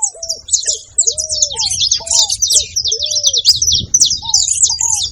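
Saffron finch (canário-da-terra) calling: a dense, unbroken run of quick, high chirps, over a separate series of short, lower, arched whistled notes.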